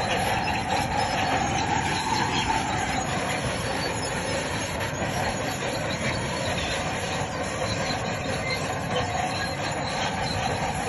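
Crawler bulldozer working, its diesel engine running while the steel tracks give a steady, wavering squeal.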